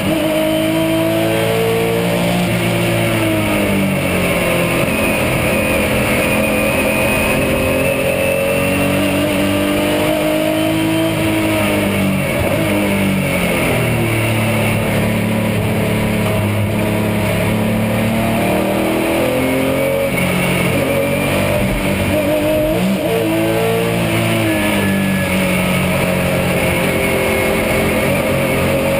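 Porsche 996 GT3 Cup's flat-six engine heard from inside the cockpit at racing speed. Its pitch falls under braking and climbs again on acceleration, several times over.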